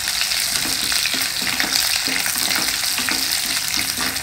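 Peeled shallots sizzling in hot sesame oil in a stainless steel kadai, stirred with a wooden spatula that scrapes the pan in quick, repeated strokes over a steady frying hiss.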